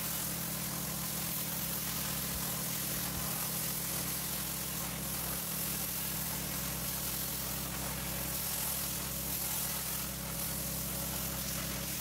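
Yeswelder Cut-65DS air plasma cutter on an Arcdroid CNC cutting 3/16-inch mild steel plate: a steady hiss of the arc and air over a steady low hum. It is cutting at 55 amps and 55 psi, settings that soon gave trouble penetrating the plate.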